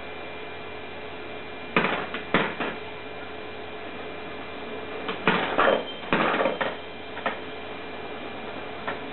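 Plastic balls clacking down the spiral ramps of a Kumon Kuru Kuru Chime toy. There are a few sharp clacks about two seconds in, a busier cluster in the middle, and single ones near the end, over a steady electrical hum.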